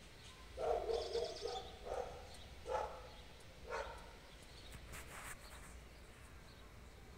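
Animal calls outdoors: a handful of short calls about a second apart over the first four seconds or so, with a brief high bird chirping among them.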